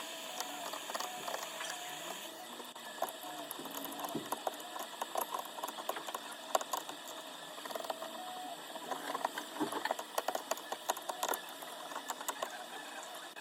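Repair work on an iPhone 12 Pro Max's back glass: a run of small, irregular clicks, taps and scrapes of tools on the phone over a steady hiss.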